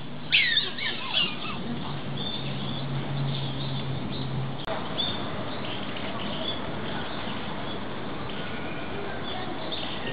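A few short, high chirping calls in quick succession about half a second in, then steady background hiss with faint scattered chirps.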